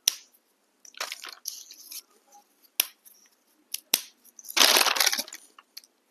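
Crunchy chocolate-coated biscuit snacks being bitten and chewed close to the microphone: scattered sharp crunches, then a longer, louder crunch of several cracks together a little past four seconds in.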